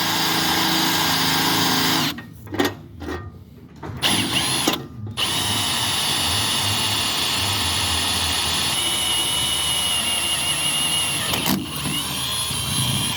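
Power drill with a quarter-inch bit drilling a rivet hole in steel. It starts and stops several times in short bursts, then runs steadily for about eight seconds, its whine dropping in pitch partway through, and cuts off at the end.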